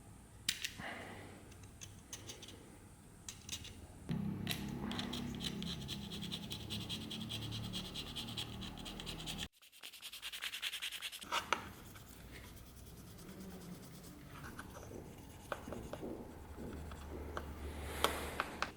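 Continuous scratching and rubbing of a tool on a hard surface, fast and even, cut off abruptly about halfway through and resumed briefly after. A few scattered clicks and taps come before and after it.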